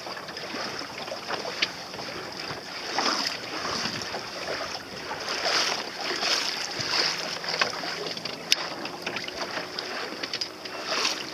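Water lapping and splashing against the hull of a small sailboat, swelling about once a second, with wind on the microphone. A faint steady hum joins in the second half.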